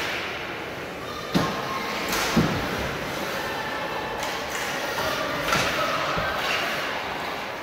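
Gymnasium sound during a basketball game: two sharp thumps about a second and a half in and a second later, over a steady murmur of voices echoing in the hall.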